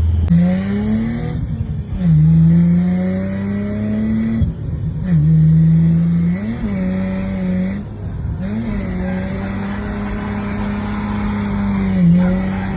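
Drift car's engine revving hard, its pitch climbing and falling back several times as it goes through the revs, then held fairly steady with brief dips.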